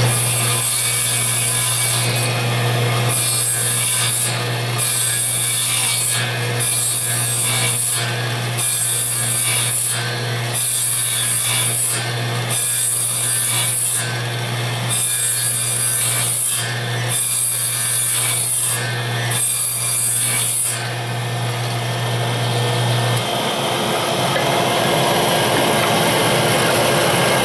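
Radial arm saw cutting a hand-hold recess into a pine board: about a dozen cutting strokes, roughly one every two seconds, over the steady run of the saw's motor. The cutting stops about 21 seconds in and the motor shuts off a couple of seconds later, leaving a steady hiss.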